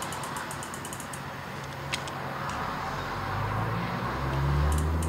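Plastic and metal parts of a hand-turned SSS clutch demonstration model clicking and rubbing: a quick run of light clicks in the first second, a single click about two seconds in, and a low rubbing hum that grows louder toward the end.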